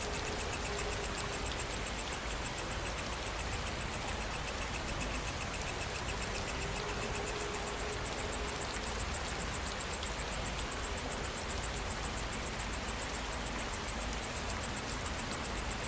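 Steady rain falling, an even hiss with no thunder, with a fast, evenly repeating high-pitched chirping of night insects over it.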